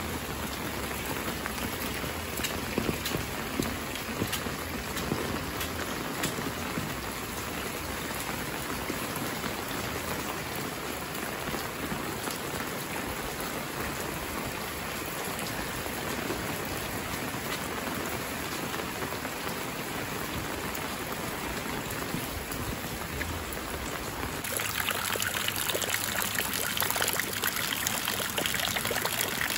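Steady rain falling on roofs and wet pavement, a constant hiss with scattered drops. About 24 seconds in it changes suddenly to a louder, brighter hiss of rain on standing floodwater.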